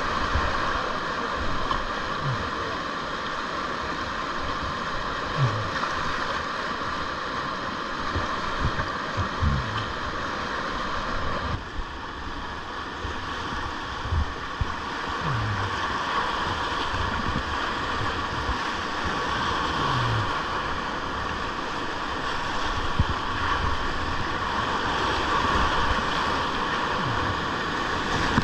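Steady rush of whitewater in a river rapid, with scattered low thumps and bumps.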